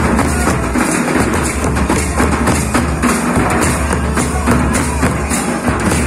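Traditional Santal drum ensemble playing a dense, continuous rhythm: large basket-bodied kettle drums (tamak') beaten with sticks together with white-headed metal-shelled drums, the strokes coming thick and fast without a pause.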